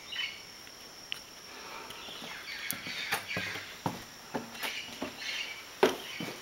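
Irregular footsteps scuffing and tapping on a stone path, the sharpest about six seconds in, over a steady high-pitched insect hum.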